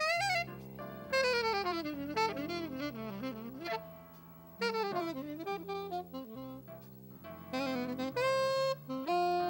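Saxophone playing fast, winding jazz runs in phrases with short breaks, ending on long held notes, over a bass line that steps from note to note.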